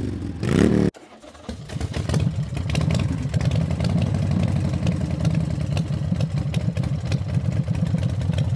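Motorcycle engine revving up in a rising sweep that cuts off abruptly about a second in. Then a motorcycle engine comes in and settles into a steady, pulsing low rumble.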